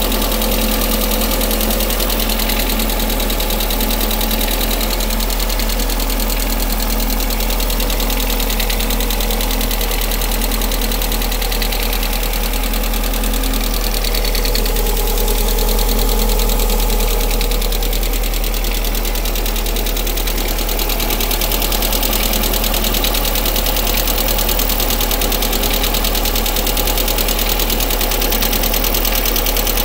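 Lada Priora engine idling steadily with a knock, after the car has stood unused for a long time. The owner suspects the hydraulic valve lifters or the piston and connecting-rod group.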